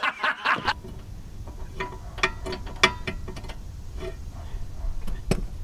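A man laughing for under a second at the start, then light metallic clicks and clinks from a wrench working on the motor mount bolts, running at about four a second for a stretch, with one sharper clink near the end.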